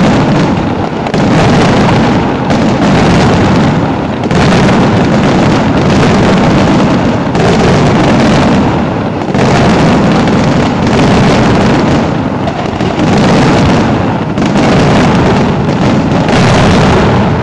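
Aerial fireworks display: a dense, continuous barrage of shell bursts, the reports running together with no gaps, very loud, swelling and easing every second or two.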